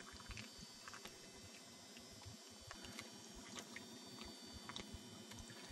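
Near silence: faint background hiss with scattered soft ticks and light knocks at irregular intervals.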